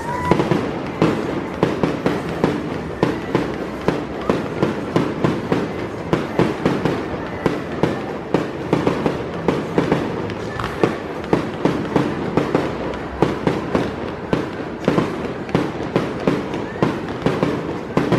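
Fireworks display going off in a steady barrage: rapid bangs and crackling reports, several a second, with no pause.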